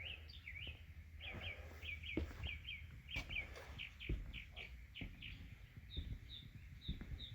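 A songbird singing a long run of quick chirps in repeated phrases that change every second or two, softer single chirps near the end. A few faint low knocks sound underneath.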